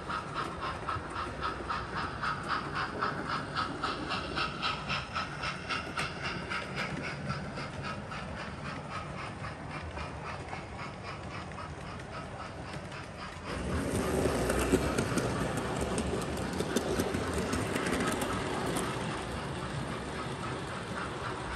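OO gauge model steam locomotive running on the layout, with a steady rhythmic chuffing beat. A little past halfway a louder rushing hiss comes in suddenly and continues.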